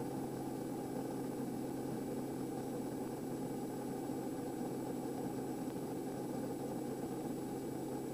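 Steady drone of the Kodiak 100's single turboprop engine and propeller at cruise power, with a constant low hum that does not change in pitch or level.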